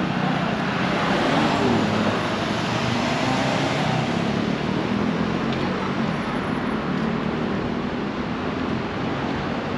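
City road traffic: a steady hum of car engines and tyres from cars passing through a street junction, swelling for a few seconds about a second in.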